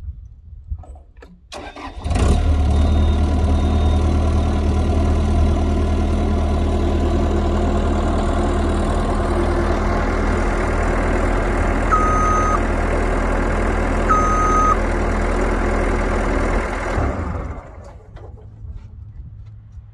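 Skid-steer loader engine starting about two seconds in, running steadily for about fifteen seconds and then shutting off. Two short beeps sound a couple of seconds apart while it runs.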